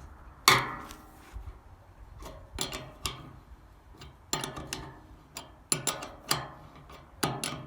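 Irregular metallic clicks and knocks from hand tools working an alternator's overrunning clutch pulley as it is fitted onto the shaft.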